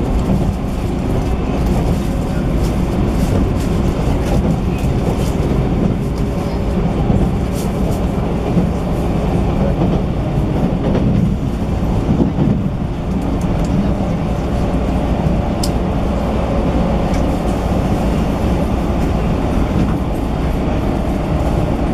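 Steady running noise inside the passenger cabin of a 185 series electric multiple unit motor car (MoHa 185) travelling along the line: a continuous low rumble of wheels on rail and the running gear.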